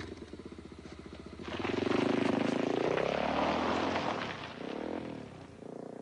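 Motorcycle engine running and revving hard, its pitch rising and falling, loudest about two seconds in, then easing off with a second, smaller rise near the end.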